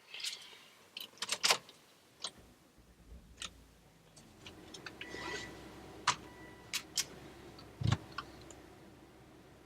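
A string of sharp clicks and knocks, like objects being handled, with the loudest cluster about a second and a half in and a duller, deeper thump near the end.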